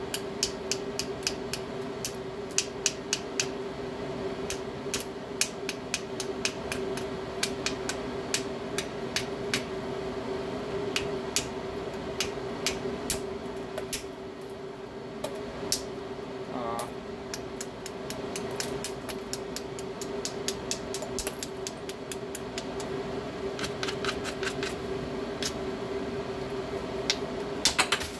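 Hammerstone striking the edge of a stone biface as it is knapped: a series of sharp clicks, often a couple a second, thinning out in the middle, over a steady hum.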